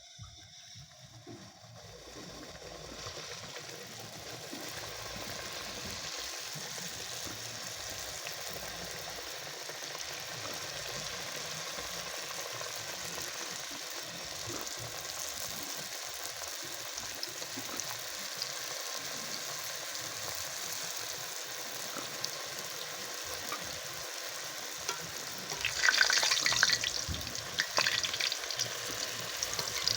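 Mandazi dough deep-frying in hot cooking oil: a steady sizzle that builds over the first few seconds, with a louder burst of crackling near the end.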